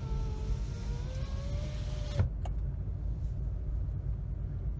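A car's electric power window motor whining as the glass travels, rising slightly in pitch before stopping with a click about two seconds in. A steady low rumble of the car rolling slowly runs underneath.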